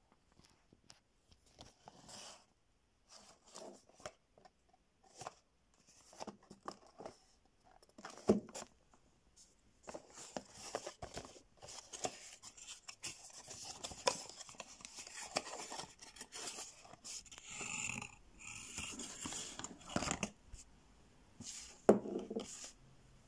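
Cardboard perfume box and its inner packaging being handled and opened: scattered scrapes and taps, then denser rustling of card and wrapping in the second half, with a few sharper knocks about eight seconds in and near the end.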